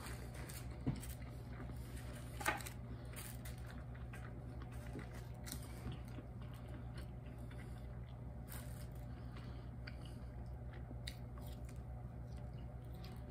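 A person chewing and biting into a Polish sausage sandwich and French fries close to the microphone: irregular wet mouth clicks and soft crunching, with two slightly louder clicks about one and two and a half seconds in. A steady low hum runs underneath.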